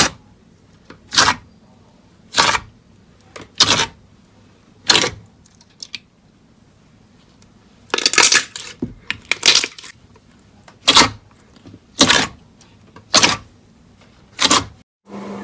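Slime being worked by hand, giving a regular series of short, sharp crackling pops about once every second, with a quicker cluster of pops near the middle.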